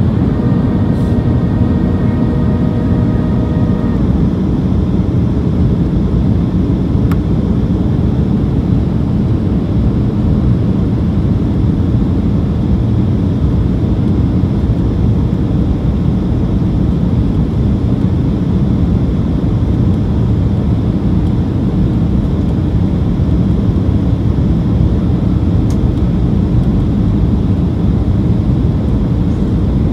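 Steady cabin roar of a Boeing 737-800 on approach with flaps extended, the airflow and CFM56-7B engine noise heard from a seat over the wing. A steady whine of several tones sits over the roar for the first few seconds and stops about four seconds in.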